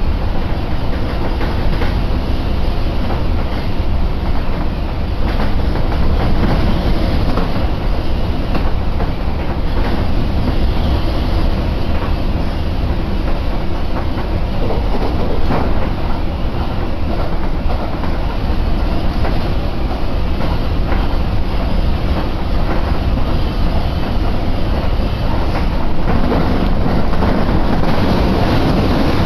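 Tobu Isesaki Line electric train running at speed, heard from inside the passenger car: a steady rumble of wheels on rail with the clickety-clack of rail joints. About 26 seconds in the rumble gets louder and deeper as the train runs onto a steel truss bridge.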